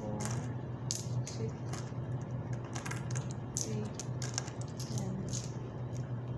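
Coins clicking against one another, many small irregular clicks as they are counted by hand, over a steady low hum.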